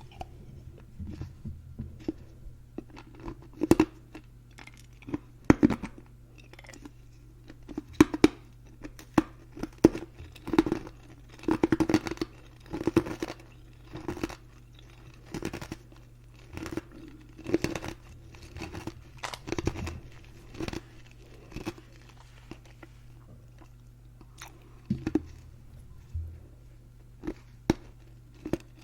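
Ice being crunched and chewed close to the microphone: a sharp crunch every second or two, with softer chewing in between.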